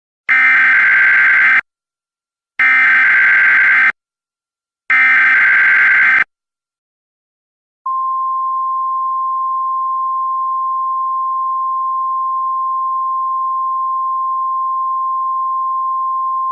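Emergency Alert System alert: three screeching bursts of SAME digital header data, each over a second long with about a second between them. About eight seconds in, a single steady, piercing attention tone starts and holds.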